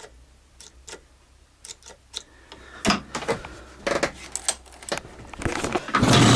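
A run of sharp clicks and knocks as the motorcycle is readied to start, then about six seconds in the IZh Planeta 5's single-cylinder two-stroke engine catches and keeps running loudly and steadily.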